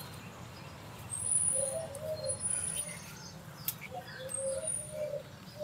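Birds calling: a low cooing phrase of short repeated notes comes twice, while another bird gives thin, very high whistled notes.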